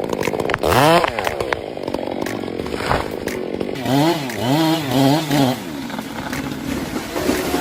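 Two-stroke chainsaw engine revving: its pitch sweeps up and falls back about a second in, then the throttle is blipped three times in quick succession past the middle, with the saw running steadily in between.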